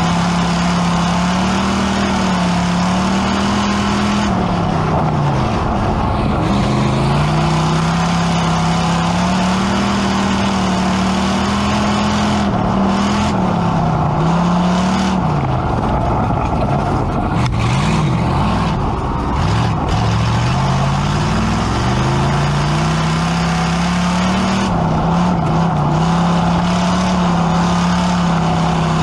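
Pure Stock dirt-track race car's engine heard from inside the cockpit at racing speed. Its pitch climbs and holds, then drops off and picks up again several times, over a constant rush of noise.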